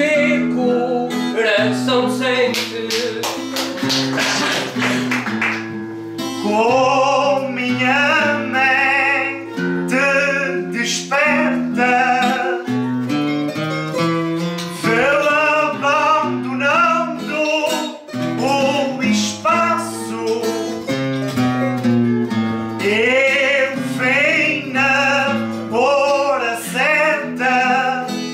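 Live music on plucked string guitars: about six seconds of fast, dense plucking, then a wavering melody line with vibrato over a stepping plucked bass line.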